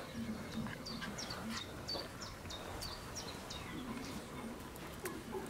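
A small songbird chirping in a quick series of short, high chirps, about three or four a second, for roughly three seconds.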